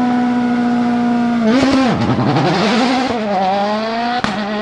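WRC rally car's 1.6-litre turbocharged four-cylinder engine held at steady high revs on launch control, then released about a second and a half in: the revs dip sharply and waver as the car bites and pulls away, then climb again. A single sharp crack near the end.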